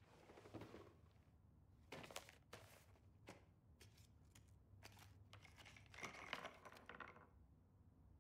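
Faint rustling and a series of light clicks and taps as small objects (a pizza crust, a bit of bagel, a lollipop, a spool of thread) are handled and set down one by one on the wooden ledge of an upright piano.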